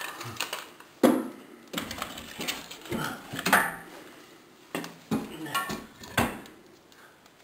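Split firewood being loaded into a wood stove: about six sharp clunks of logs knocking against the metal firebox and each other.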